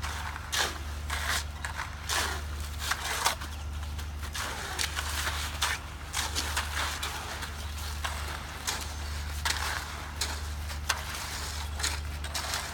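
Shovels and rakes scraping and slapping through wet concrete as it is spread, in many short, irregular strokes, over a steady low engine hum.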